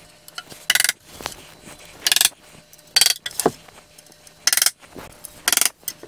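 A small hammer tapping little wooden plugs into the screw holes of a wooden bar stool: five sharp taps, irregularly spaced about a second apart.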